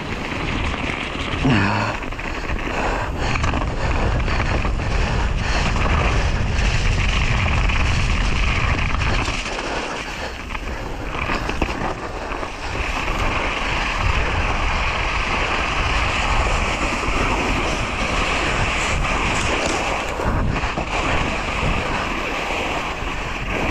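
Mountain bike descending at speed over mud, dirt and patchy snow. Wind buffets the microphone and the tyres roll and rattle over the rough ground, with scattered knocks from bumps.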